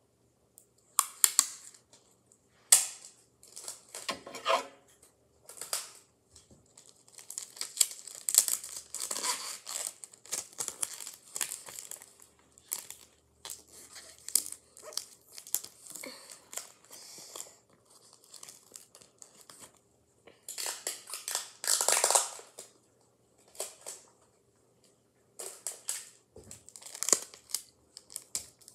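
Wide adhesive tape being pulled off the roll and torn in a series of short noisy strips, the longest and loudest in the later part, with paper crinkling as the tape is pressed onto it.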